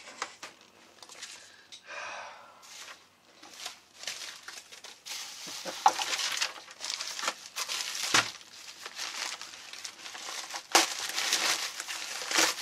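Paper packing slips and a padded mailer being handled: rustling and crinkling, busier in the second half, with a few sharp crackles.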